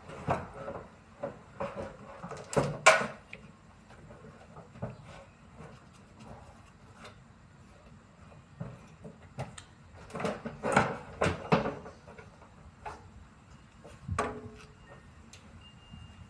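Irregular knocks and clatter of tools and parts being handled while a front-loading washing machine is taken apart. They come in clusters, in the first three seconds, around ten to twelve seconds and once near fourteen seconds, with quieter gaps between.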